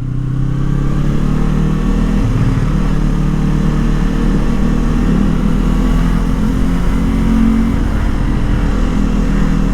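Yamaha R25 V2's parallel-twin engine running at steady, unchanging revs, with a low rumble underneath.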